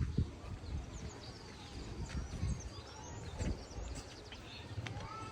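Small birds chirping and calling with short high notes and quick sweeps, over irregular low thumps of footsteps.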